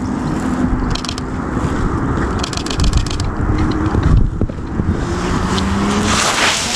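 Sleeve fabric rubbing and scraping against the microphone of a body-worn action camera, with quick runs of sharp, evenly spaced clicks from a camera shutter about a second in and again around three seconds in.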